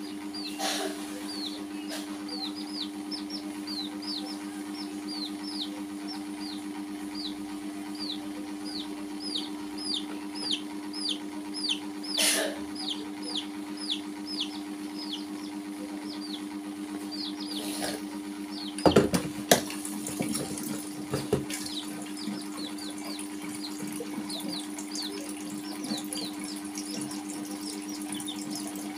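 Young chicks peeping continuously, a stream of short, high, downward-sliding cheeps about one to two a second, over a steady low hum. A few sharp knocks sound about two-thirds of the way through.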